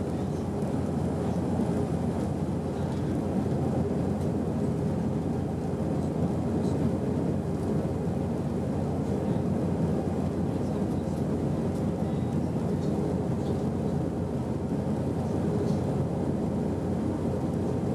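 Steady low roar of an Airbus A319's jet engines and rushing air, heard inside the cabin during the climb-out after takeoff, with a faint steady hum.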